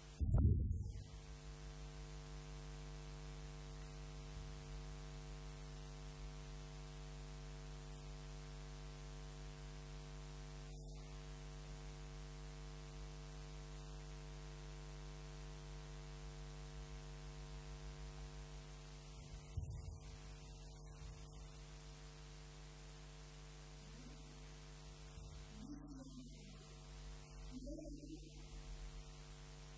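Steady electrical mains hum, a buzz made of many evenly spaced tones. There is a loud thump just after the start, and faint bits of a voice near the end.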